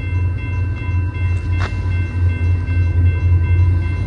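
Approaching train, its locomotive engine giving a steady, pulsing low rumble, with one sharp click about one and a half seconds in.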